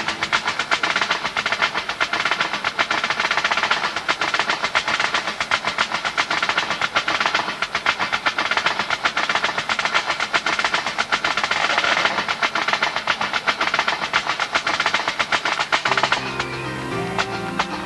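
Pipe band side drum (snare drum) played solo with sticks: fast, continuous rolls and accented strokes. About two seconds before the end the drumming gives way to pitched music.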